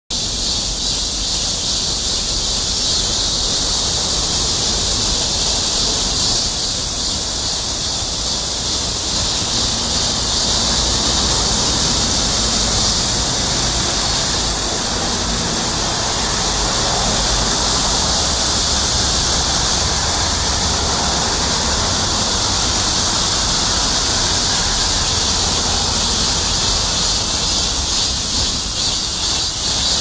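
Steady, loud high-pitched hiss with a weaker low rumble beneath.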